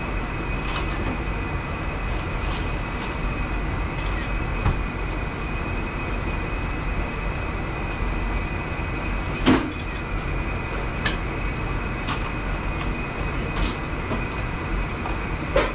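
Steady mechanical hum of a commercial kitchen with a thin high whine, and scattered light clinks of chopsticks against a stainless steel mixing bowl, one louder clank about nine and a half seconds in.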